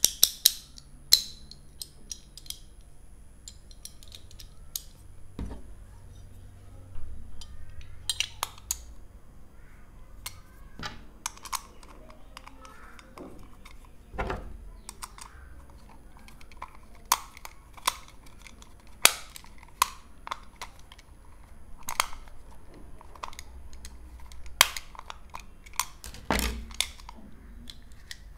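Sharp metal clicks and taps, irregular and a few seconds apart, as the metal handle halves, blade and screw of a Stanley 99 retractable utility knife are fitted back together and the knife is handled.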